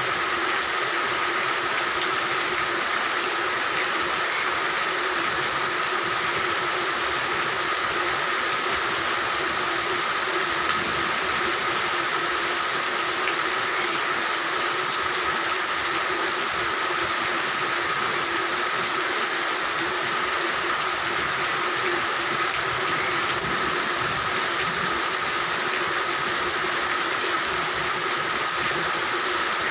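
Steady rain with a continuous, unbroken chorus of calling frogs.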